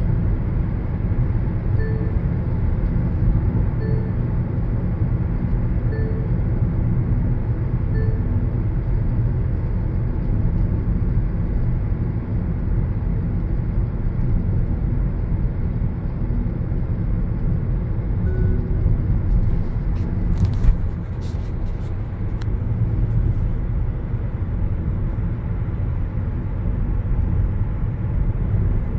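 Steady road and engine rumble heard from inside a moving car's cabin. Near the start there are four short beeps, two seconds apart, and a little after the middle a brief knock.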